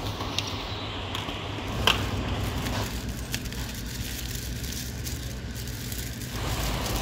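Thin plastic bag crinkling as it is drawn over a plate and wrapped, with a few sharp clicks, the loudest about two seconds in, over a steady low background rumble.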